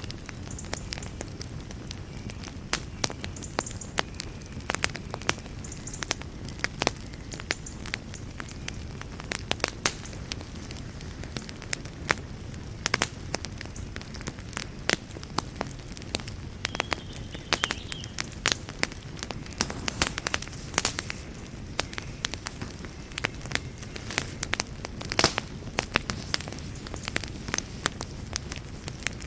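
Wood fire burning in a fireplace, crackling with frequent irregular sharp pops over a steady low rumble of the flames, with a few brief faint hisses.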